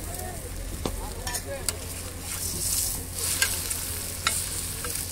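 Egg masala frying in oil on a flat griddle pan, sizzling steadily, with a metal spatula scraping and clicking sharply against the pan a few times.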